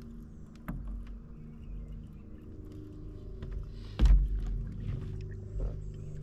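An engine idling steadily with a low, even hum, with a light knock under a second in, a loud thump about four seconds in and another knock shortly after.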